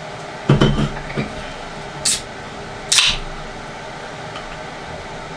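Aluminium can of Bud Light Seltzer Hard Soda (Cherry Cola) being opened: a short hiss about two seconds in, then a louder crack of the tab with a brief fizzing hiss about a second later. Dull knocks and handling of the can come just before.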